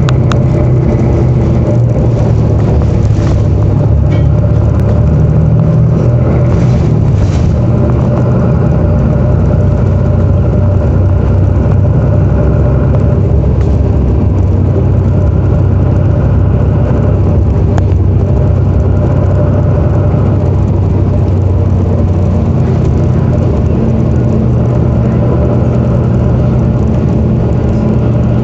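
City bus running along the road, heard from inside the cabin: a steady low engine drone with road noise, its pitch shifting up and down every few seconds as the bus speeds up and slows.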